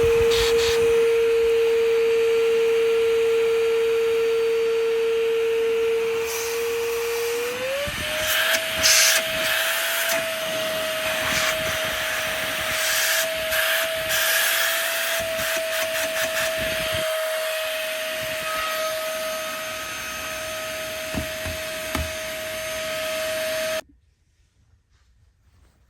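Bossman cordless vacuum cleaner's motor running with a steady whine that steps up in pitch about seven seconds in. Irregular scraping and knocking come through over the second half. The motor is switched off and stops abruptly near the end.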